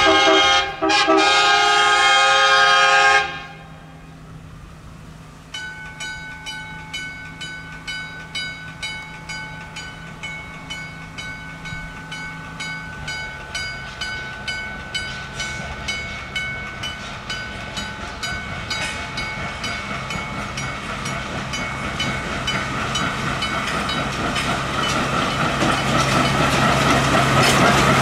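Narrow-gauge Planet diesel locomotive sounding its horn for about three seconds. It then approaches, its wheels clicking in a steady rhythm over the rail joints and the engine growing louder toward the end.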